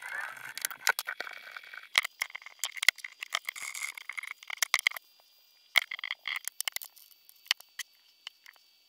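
Small hex driver backing screws out of a TRX-4 plastic front axle, with clicks and rattles of the screws and plastic axle parts being handled. The clicks come thickly for about five seconds, then thin out.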